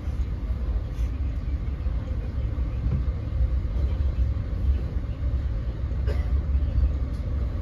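Inside an NJ Transit Multilevel passenger coach running at speed: a steady low rumble from the train on the rails, with a faint steady hum.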